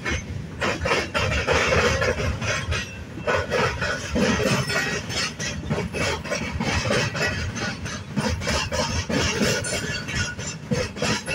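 Freight train of steel coil cars rolling past at close range: steel wheels on rail making a steady rolling noise with frequent irregular knocks and clanks.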